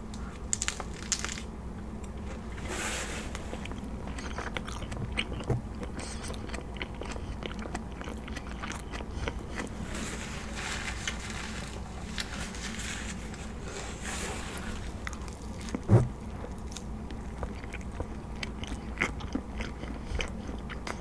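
A person biting into and chewing a Wendy's Junior Bacon Cheeseburger close to the microphone, with irregular crunching and wet mouth sounds. There is a single louder thump about three-quarters of the way through.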